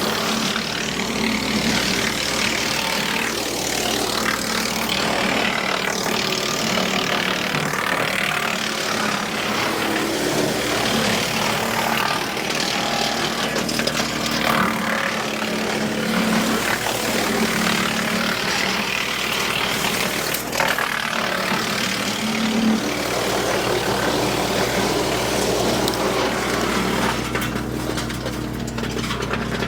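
Woodmaxx WM8H PTO wood chipper running steadily off a tractor's power take-off as branches are fed through and chipped, a rough crunching noise over the steady drone of the engine and chipper drum.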